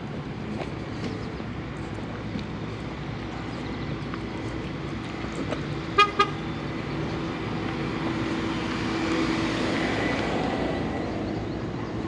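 A car horn gives two short toots in quick succession about halfway through, with a car's engine hum approaching. The car then drives past close by, its engine and tyre noise swelling and fading away.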